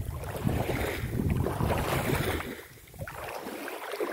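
Wind buffeting the microphone as a low rumble, over the light splashing of a dog wading through shallow river water; the wind drops away after about two and a half seconds.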